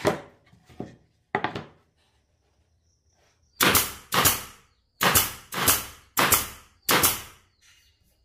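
Pneumatic nail gun firing six times in quick succession, each shot a sharp bang that trails off quickly as fasteners are driven into plywood. A few lighter knocks of the plywood being set down on the bench come first.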